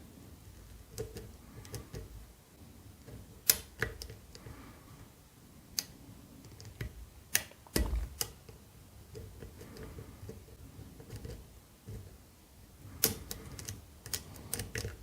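Irregular small metallic clicks and ticks of a flag lock pick working the pins of a BASI K10 padlock under a tensioner, while trying to set the pins still unset at the back. A few sharper clicks stand out, around four, eight and thirteen seconds in.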